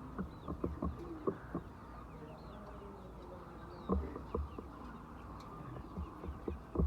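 Chickens clucking, one drawn-out call about a second in, over many irregular sharp taps and faint high chirps.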